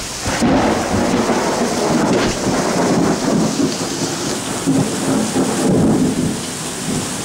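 Thunder rumbling and rolling over steady rain, the rumble swelling about half a second in.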